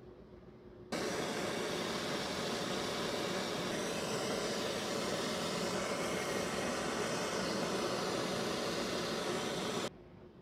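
Handheld propane torch running, a steady hissing flame heating a brass fitting and steel pipe joint for soldering. The hiss starts suddenly about a second in and cuts off near the end.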